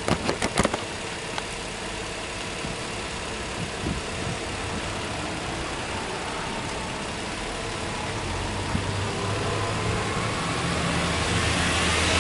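Subaru Legacy B4 3.0R's 3.0-litre flat-six engine idling steadily, then revs slowly rising and the engine getting louder over the last few seconds. A few sharp clicks in the first second.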